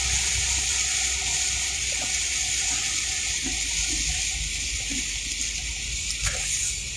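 Steady hiss of rain and tyres on a wet road heard from inside a moving car, over a low engine rumble, easing off slightly near the end.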